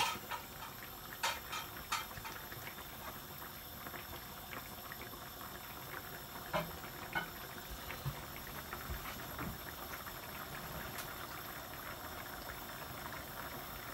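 Thick coconut fish curry bubbling fiercely in a frying pan, a sauce being reduced, with a steady patter of small pops. A few sharp knocks of a wooden spoon against the pan in the first two seconds and again about six to seven seconds in.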